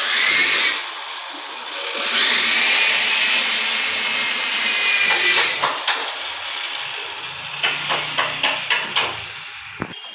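Power tool cutting, a loud hiss with a whine that dips in pitch under load and recovers, twice, typical of cutting tile. Near the end, a quick run of sharp knocks, about four a second, as tiles are tapped into place.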